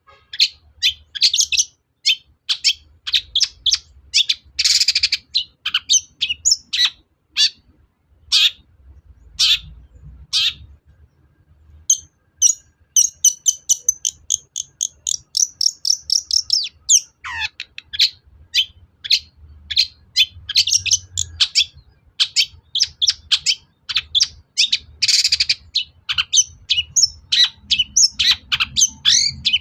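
Long-tailed shrike (cendet) singing a fast, varied run of short sharp chirps and whistles, with a long rapid trill from about 12 to 17 seconds in and harsh scratchy calls around 5 and 25 seconds in.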